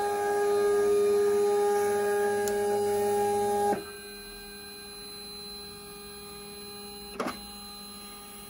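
Vinyl cutter's motors whining steadily as it feeds orange vinyl through its rollers for an area test, stopping abruptly about four seconds in. Then a low hum, and a brief whirr near the end as the cutting head moves.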